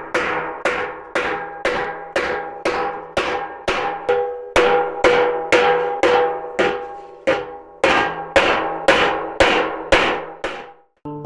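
Hammer blows on a steel handpan shell, about two a second in an even rhythm, each strike ringing with metallic tones. The hammering stops abruptly near the end.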